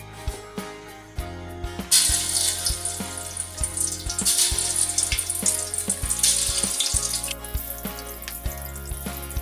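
Background music with a steady beat. About two seconds in, a loud hiss starts suddenly, stays strong for about five seconds, then carries on more faintly.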